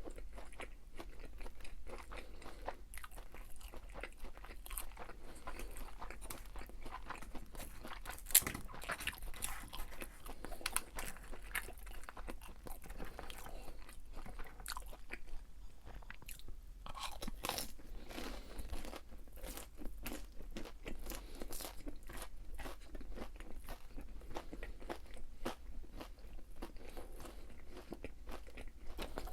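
Close-miked chewing and crunching of crispy fried food, a steady run of small crackles with one sharper crunch about eight seconds in.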